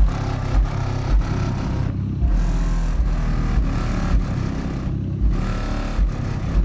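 Rap/R&B song played loud through a Sundown X15 v.2 15-inch subwoofer in a sealed box, the deep bass hits strongest and landing about every half-second to second.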